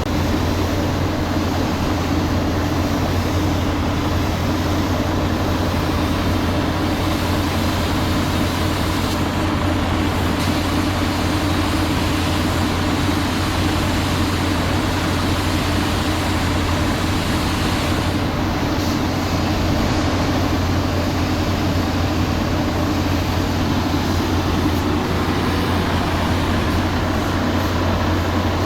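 A steady, unchanging low mechanical drone, like a machine or engine running continuously.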